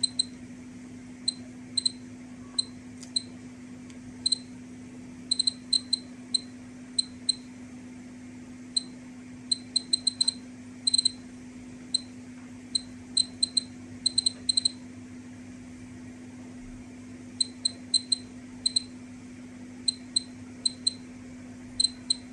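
Ecotest MKS-07 Poshuk dosimeter giving short, high beeps at irregular, random intervals, roughly two a second and sometimes in quick clusters. Each beep is a particle registered by its Geiger counters while the reading is being checked. A steady low hum runs underneath.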